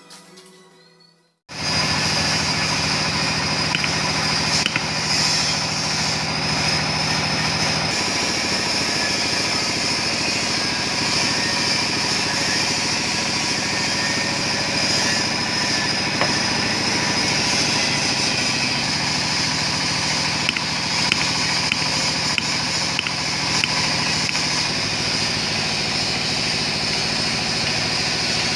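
A small machine motor starts about a second and a half in and runs steadily with a high whine over a low hum.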